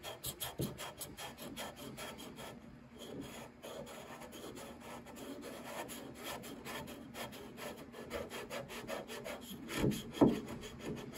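Sandpaper rubbing on an old finish on rosewood in quick, even back-and-forth strokes. It is 220-grit sticky-back paper on a hard, flat backing, levelling melted-in burn-in filler.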